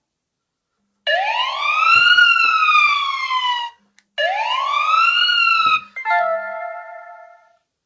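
Two loud electronic siren-like whoops, each rising quickly and then falling slowly in pitch, followed about two seconds later by a steady held chord that fades away.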